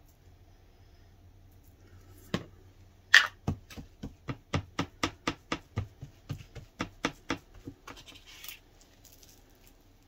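Kitchen handling noise: a loud knock about three seconds in, then a quick, even run of sharp taps, about three a second, dying out with a light rustle about eight seconds in.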